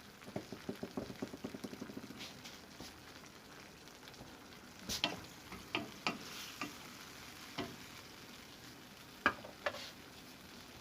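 Canned mackerel in tomato sauce cooking in a pot while being stirred with a spoon: a quick run of light taps in the first two seconds, then scattered clinks of the spoon against the pot.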